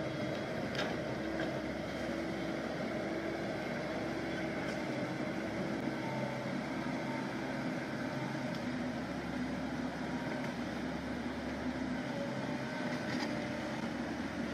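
A steady engine hum that holds at an even level, with no sudden events.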